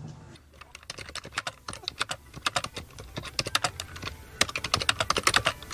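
Computer keyboard being typed on fast, a dense run of irregular key clicks starting about half a second in.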